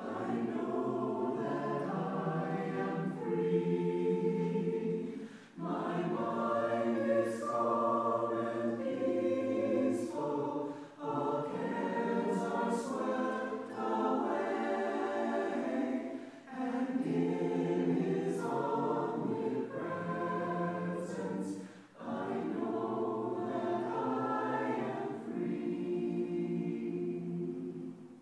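Mixed choir of men's and women's voices singing in phrases, with a brief break between phrases about every five to six seconds.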